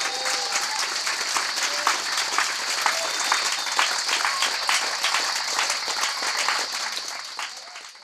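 Audience clapping over a steady high drone of cicadas, with a few faint voices. The clapping fades out near the end.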